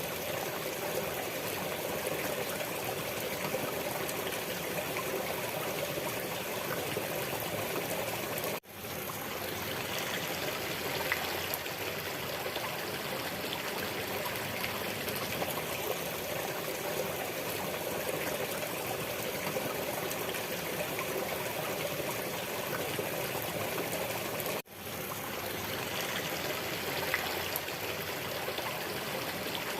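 Steady running water of a stream, trickling evenly. The sound cuts out briefly twice, about 9 and 25 seconds in, and fades straight back in, the seams of a looped recording.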